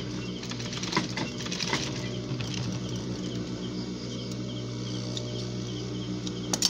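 Steady low electric hum of the sewing machine's motor running while no stitching is being done, with a few sharp handling clicks, the loudest near the end. Faint short high chirps repeat over it.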